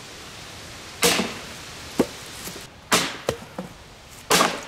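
A hammer repeatedly striking a small RCA surround-sound satellite speaker cabinet, sharp whacks about once a second, the cabinet cracking apart under the blows.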